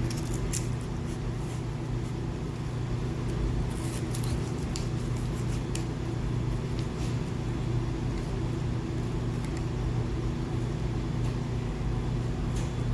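Steady low hum of a running fan motor, with scattered sharp crackles from pork grilling, most of them in the first few seconds.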